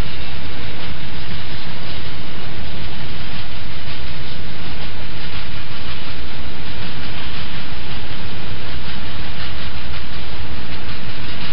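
Intermodal freight train's loaded container flat wagons rolling past, a loud, steady noise of wheels running on the rails.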